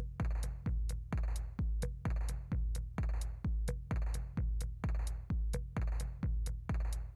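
Background electronic music with a steady drum-machine beat, about two beats a second.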